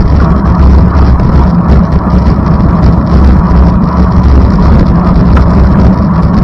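Steady, loud rumble of a road vehicle heard from on board: engine and road noise with a constant low drone and no changes.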